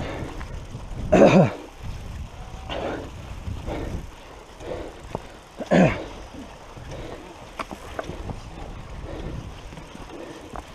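Heavy, laboured breathing of a rider pushing a mountain bike uphill, one breath about every second and a half. Two loud voiced breaths fall in pitch, about a second in and again near the middle, over a steady background of wind and movement.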